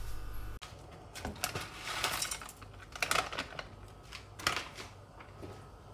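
Teaspoon clinking against a cup while stirring instant saffron milk tea: light, irregular clinks and taps, a few a second.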